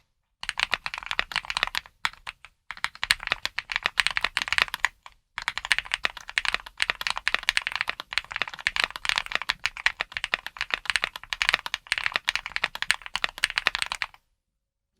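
Fast continuous typing on a mechanical keyboard fitted with Tai-Hao double-shot ABS keycaps in Cubic profile, with rapid dense key clacks and two brief pauses.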